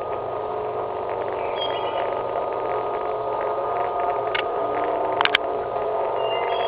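A steady droning hum of several held tones sounding together, heard as coming from overhead, of a source the listener cannot identify. Two brief clicks come about four and five seconds in.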